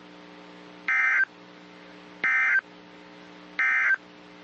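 Three short bursts of NOAA Weather Radio SAME digital data tones, evenly spaced about a second and a third apart, over a faint steady hum. The bursts are brief enough to be the end-of-message signal that closes an alert.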